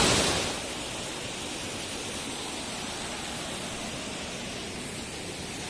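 Steady rush of falling water from a waterfall; the loud rush drops sharply about half a second in and then holds at a lower, even level.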